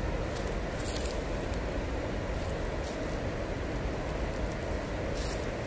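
Steady outdoor rushing noise with a low rumble, with a few faint, brief rustles or ticks over it.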